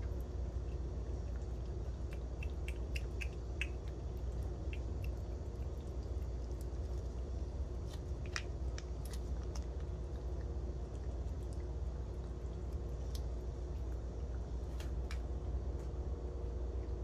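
A cat licking and lapping a Churu paste treat from a squeezed tube: soft, quick, wet ticking sounds in scattered runs. A steady low hum runs underneath.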